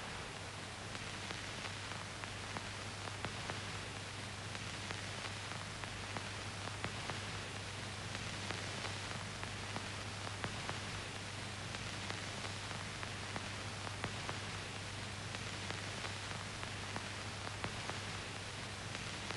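Steady hiss with a low hum and faint crackling clicks: the background noise of the recording, with no music or speech.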